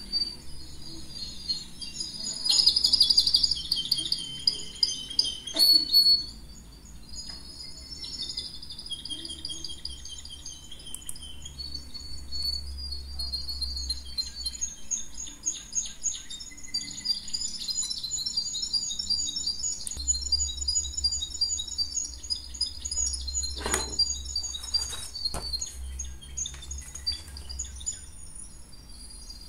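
Small birds chirping and twittering in quick repeated notes, loudest a few seconds in, over a low steady hum, with a couple of sharp clicks.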